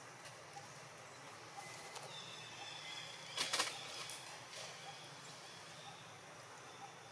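Quiet outdoor ambience with a few faint, thin high chirps, and a brief scratchy rustle about three and a half seconds in.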